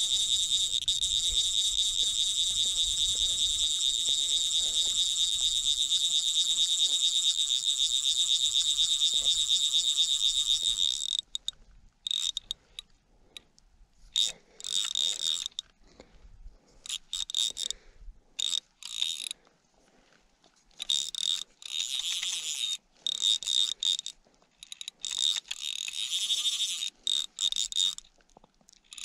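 Fly reel's click-and-pawl drag spinning fast with a high whine as a hooked tiger trout pulls line off in one long run of about eleven seconds, then whirring again in many short bursts.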